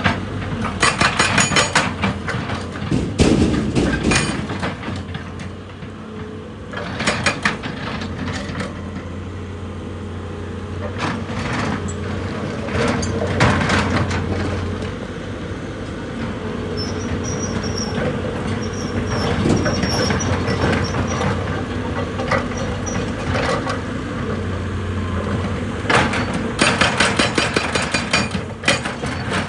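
Excavator's diesel engine running steadily, with several bursts of rapid clattering from the working machine, about one to two seconds in, around seven seconds in, and again near the end.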